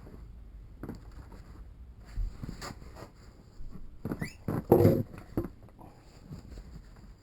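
Pet birds moving about: scattered knocks and rustling, a short rising chirp just after four seconds in, and a louder clatter just before five seconds.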